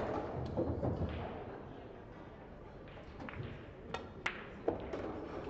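Sharp clicks of pool balls about four seconds in: the cue tip striking the cue ball, then the cue ball clicking into an object ball a third of a second later, with a duller knock just after, over a low murmur of room noise.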